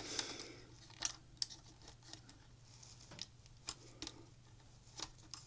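Faint, irregular clicks and taps of small hard parts being handled, a few sharp ticks a second or more apart over a low background hum.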